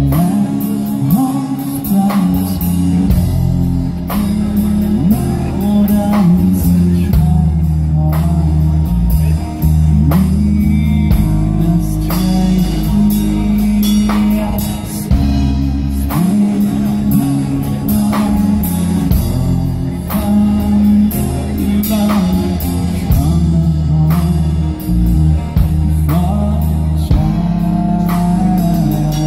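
Live rock band playing through a PA: sung vocals over electric guitar, bass guitar and a drum kit, with a steady beat and a moving bass line.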